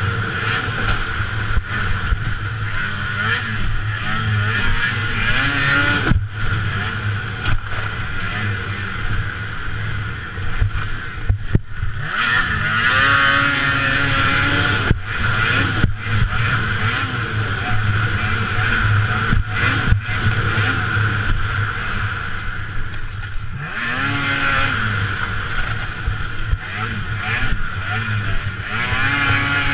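Race snowmobile engine under full racing load, repeatedly revving up and easing off as it goes round the track. The sound drops out briefly several times where the throttle is closed.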